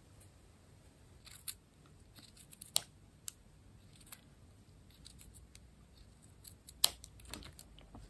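Small scissors snipping through a scrap of fabric: a series of short, irregular snips, the sharpest about three seconds and seven seconds in.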